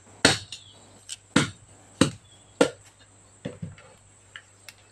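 Knife chopping into a whole patin catfish as it is cleaned: four sharp chops in the first three seconds, then two softer knocks and faint handling of the fish.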